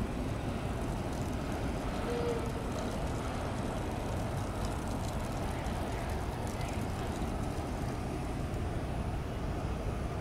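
Faint, steady low rumble of a Boeing 737-800 jet airliner arriving, still some way off.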